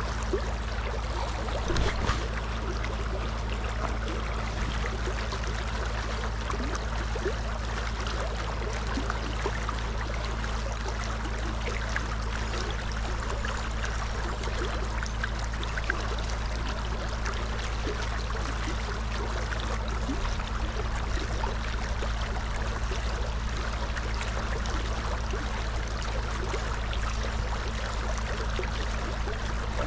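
River Tay flowing steadily, an even wash of running water with a few faint ticks.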